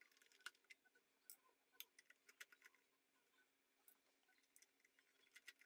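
Near silence with faint, scattered light clicks from hands handling a Canon T90 camera body, most of them in the first half and a couple more near the end.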